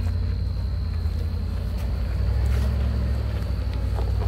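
Land Rover Discovery 2 engine running low and steady as the truck crawls up a rocky trail, its rumble rising slightly about halfway through, with a few faint crunching footsteps.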